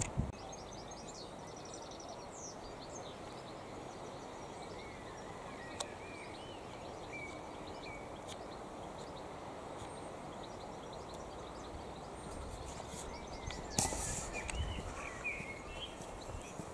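Outdoor ambience: a steady low background rush with small birds chirping and twittering at intervals. Near the end comes a brief thump and rustle, the loudest moment.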